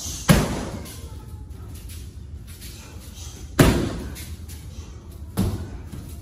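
Three hard kicks smacking into a handheld kick shield, the first two loudest and the third lighter, each with a short echo.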